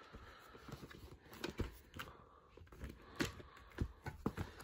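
Faint plastic clicks and handling noise of a VHS tape's hinged clamshell case being opened and the cassette lifted out, a scattering of light knocks about every half second to second.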